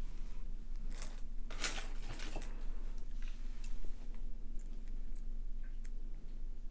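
Light handling of jewellery pliers, copper wire and small metal spacer beads: a few soft rustles, then scattered small clicks as the pliers grip the wire to start a wrapped loop.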